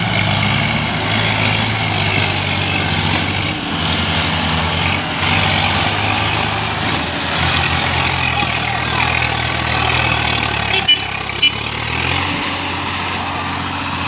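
Diesel farm tractor engines running hard under load, pulling a heavily loaded sugarcane trolley, their note shifting as they labour. Two sharp knocks sound about eleven seconds in.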